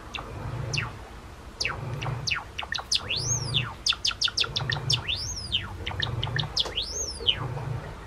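Java sparrow singing: a run of quick clicks and descending chirps broken by three drawn-out whistles that rise and fall, about two seconds apart.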